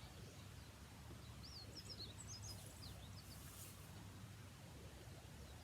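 Faint birds chirping: a short cluster of quick, high up-and-down notes between about one and a half and three and a half seconds in, over a steady low background rumble.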